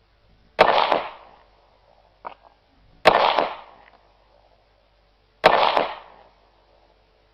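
Three Glock pistol shots, about two and a half seconds apart, each a sharp crack with a short fading echo, with a faint click between the first two.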